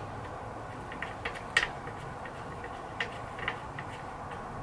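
A few light metallic clicks and ticks as motorcycle fork and triple-clamp parts are handled by hand, the sharpest about one and a half seconds in.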